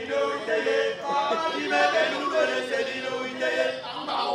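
A group of men singing a traditional Annang chant together, several voices at once.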